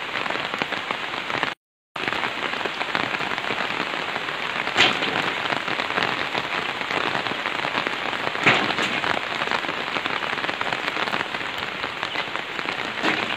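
Steady, dense rain falling outdoors, with two sharp knocks about five and eight and a half seconds in as pieces of firewood are pulled from a woodpile and handled.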